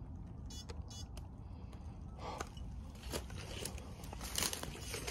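Footsteps crunching and snapping through dry brambles, twigs and dead undergrowth, with scattered crackles over a low steady rumble. The crunching gets busier and louder about halfway through.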